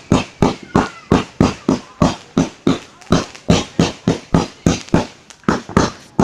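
Fireworks going off in a rapid, even string of sharp bangs, about four a second.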